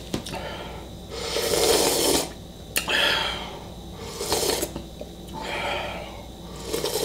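Close-up slurping of noodle soup broth drunk straight from the bowl: one long slurp about a second in, then several shorter slurps.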